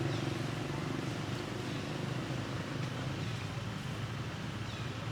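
A motor vehicle's engine running and fading away about half a second in, leaving a steady outdoor rumble with a few faint bird chirps.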